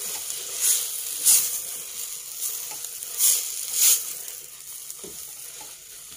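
Chopped spinach sizzling in a hot stainless steel pot as it is stirred into cooked tomatoes with a silicone spatula, the spatula strokes making louder swishes, four of them in the first four seconds. The sizzle dies down toward the end.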